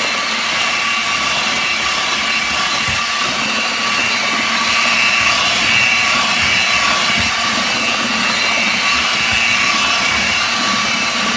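Eibenstock handheld paddle mixer running steadily with a constant motor whine, its paddle churning a thick cement overlay mix in a plastic bucket. It gets slightly louder about four seconds in.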